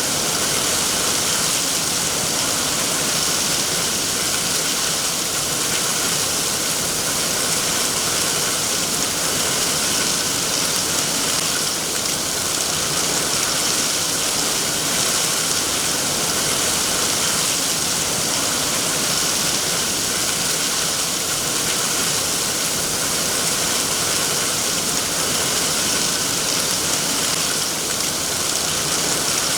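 Steady, heavy rainfall: a dense, even hiss of rain with no separate drops standing out.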